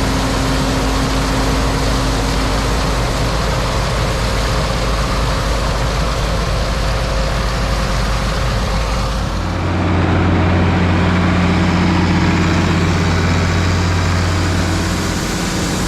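Engine of an old grain truck running steadily; about two-thirds of the way through its note changes to a steadier, slightly louder low hum.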